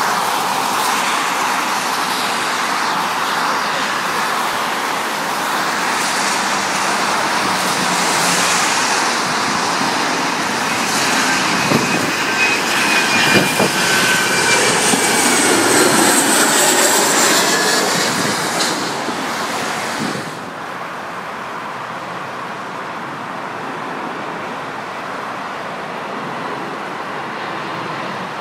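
Boeing 737 jet engines as the airliner passes low overhead on its landing approach. The noise builds to a peak with a whine that falls in pitch, then drops away about twenty seconds in, leaving a steadier background noise.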